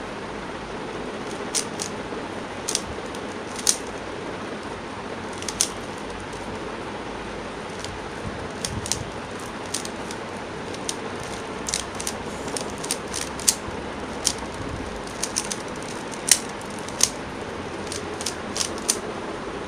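Plastic 3x3 puzzle cube having its layers turned fast by hand: irregular sharp clicks and clacks as the layers turn and snap into line, coming in quick spurts over a steady background hiss.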